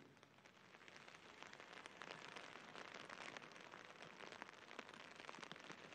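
Faint rain falling on an umbrella, heard as a thin steady hiss dotted with many tiny ticks of drops.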